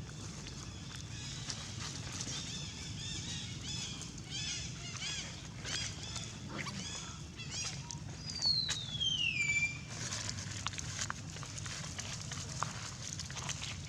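High-pitched animal calls: a run of short, quick chirps, then one loud squeal falling steadily in pitch about eight seconds in, over a steady low hum.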